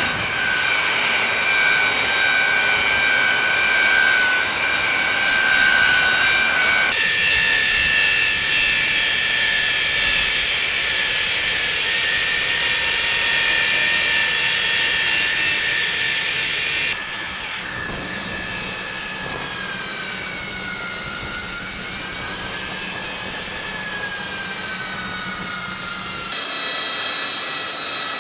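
AV-8B Harrier II's Pegasus turbofan engine running, a loud steady jet whine with high-pitched tones over a rushing roar. The sound jumps abruptly three times, about 7, 17 and 26 seconds in, and in the quieter middle stretch the whine's pitch dips and rises again.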